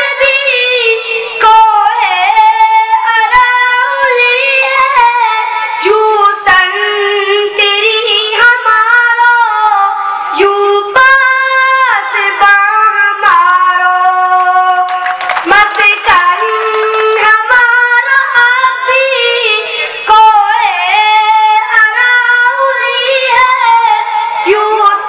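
A boy singing an Urdu nazm into a microphone in a high voice, a melodic chant with long held notes and gliding, ornamented pitch bends.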